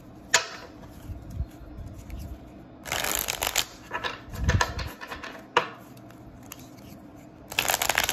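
A deck of tarot cards being shuffled by hand: two quick riffles, one about three seconds in and one near the end, each a dense flutter of card edges, with a few single taps and a low knock from the deck between them.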